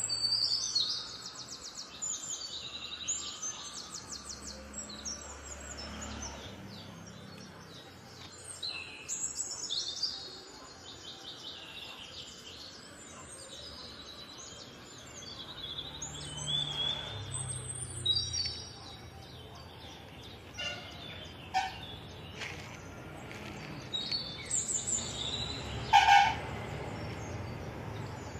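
Birds chirping and trilling repeatedly in short high bursts, with one brief louder sharp sound near the end.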